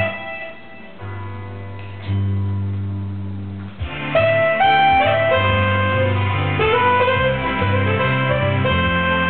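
Background instrumental music: a quieter stretch of held notes, then a busier, louder melody picks up about four seconds in.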